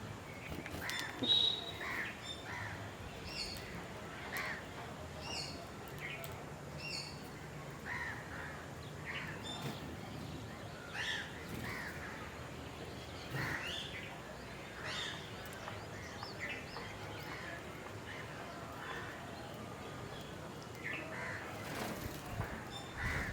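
Birds calling in a steady run of short repeated calls, about one a second, over a faint background hiss.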